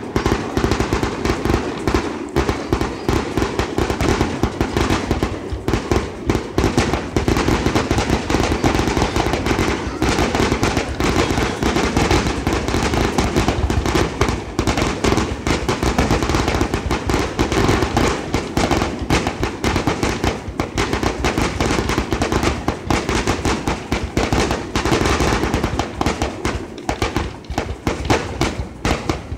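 Aerial fireworks shells bursting in a dense, unbroken barrage of bangs, many a second.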